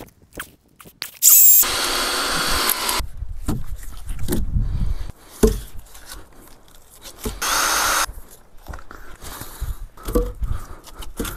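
Power drill running in two bursts, the first about a second and a half long and the second under a second, most likely driving long screws into the logs. Scattered knocks come between the bursts.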